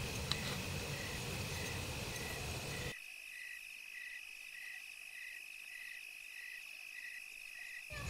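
Rhythmic chirping, about two short pulses a second, over a steady high-pitched shrill, as of crickets. A low background rumble cuts off abruptly about three seconds in, leaving the chirping alone.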